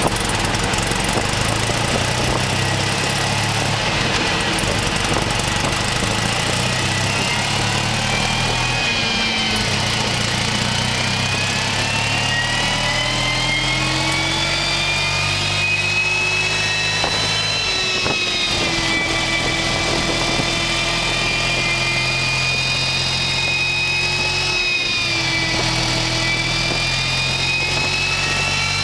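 BMW R100RS air-cooled flat-twin boxer engine running under load on a chassis dynamometer, with its top end just overhauled and being checked. It is shifted up through the gears: a whine climbs in pitch and drops back sharply at each of three gear changes.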